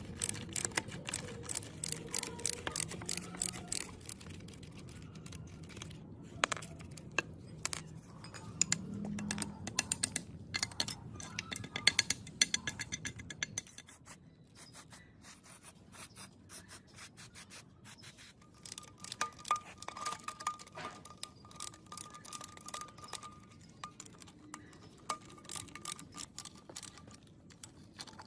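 Metal parts of an old rusty gearbox clinking, tapping and scraping as they are handled, with many sharp clinks. A low hum stops about halfway through, and a thin steady tone runs through much of the second half.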